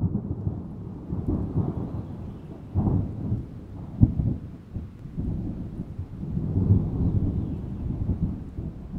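Rolling thunder: a low rumble that swells and fades, with a louder clap about four seconds in.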